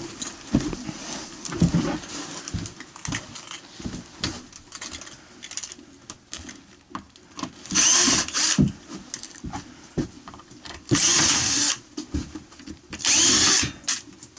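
Cordless drill run in three short bursts against wooden ceiling boards, with scattered knocks and clatter of handling before and between the bursts.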